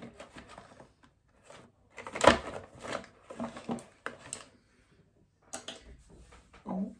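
Small clicks and knocks as skincare products are handled and set down on a table, with one louder knock about two seconds in.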